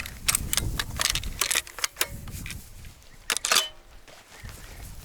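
Rustling and sharp clicks of clothing and gear being handled on the move, with a loud cluster of clicks about three and a half seconds in, over a low rumble of wind on the microphone.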